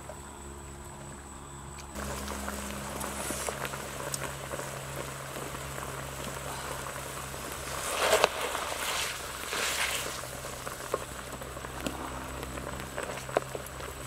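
Broth bubbling in a wok over a wood fire, with a wooden spatula stirring it. The stirring swells louder about eight and ten seconds in.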